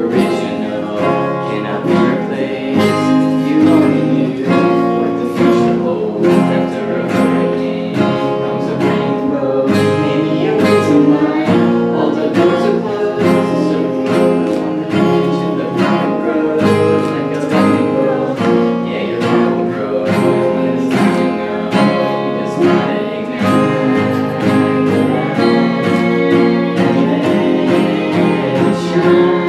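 Two acoustic guitars strummed in a steady rhythm while a young girl sings a pop song at the microphone.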